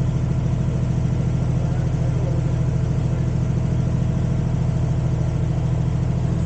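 A mini excavator's diesel engine running steadily at a constant speed, with an even low drone.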